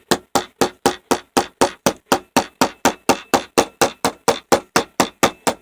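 Hammer striking a bent metal part of a door handle in a fast, steady series of blows, about four or five a second, to bend it back into place.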